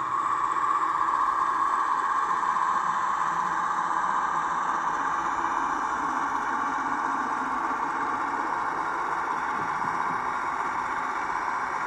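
Hornby OO gauge Sentinel model diesel running on a layout, its Loksound 4 Micro sound decoder playing a steady diesel engine sound through a small onboard speaker.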